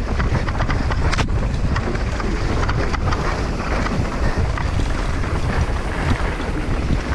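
Mountain bike descending a dry dirt trail at race speed: wind buffeting the action camera's microphone over the rumble of tyres on loose dirt, with many small knocks and rattles from the bike over bumps and a sharper knock about a second in.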